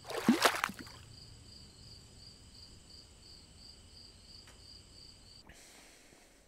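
Intro sound effect: a loud swoosh with a falling tone in the first second, then faint, high cricket-like chirping that pulses about three times a second. The chirping cuts off about five and a half seconds in, leaving a faint room hiss.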